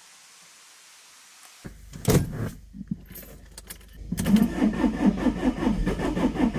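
Keys jingle at the ignition. About four seconds in, the motorhome's starter motor begins cranking the engine in an even, pulsing rhythm without it catching. The owner puts this failure to restart down to an engine battery drained overnight.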